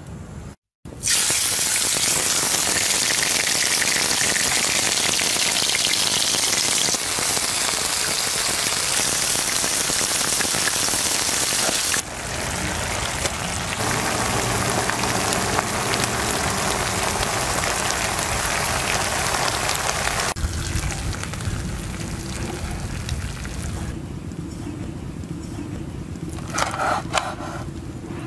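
Steak frying in hot fat in a pan: a loud, steady sizzle that changes abruptly a few times and is quieter over the last few seconds.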